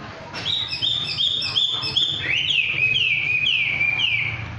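A bird singing: a run of about five short repeated whistled notes, then four louder notes that each slide downward.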